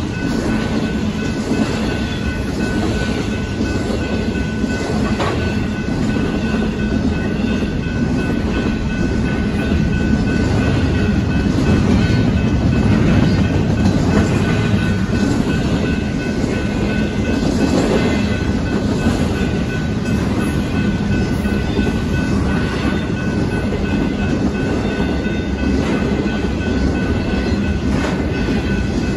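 Double-stack intermodal train's well cars rolling past, steel wheels clattering and rumbling on the rails, with a faint steady high-pitched ring over the rumble.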